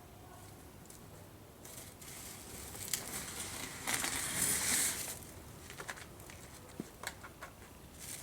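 Crinkling, rustling handling noise that builds up about two seconds in and is loudest around the middle, followed by a few scattered sharp clicks.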